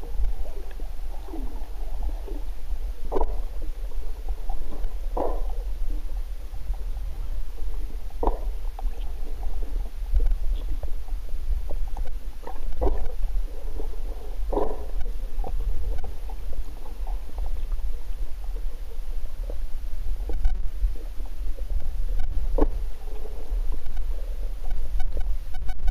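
Underwater sound heard through a camera's waterproof housing: a steady low rumble with short gurgles and knocks every second or two, from rising air bubbles around the divers.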